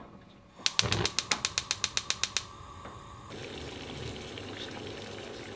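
Gas stove burner igniter clicking rapidly, about nine clicks a second for under two seconds, as the burner knob is turned; the burner then lights and a steady hiss of the gas flame follows.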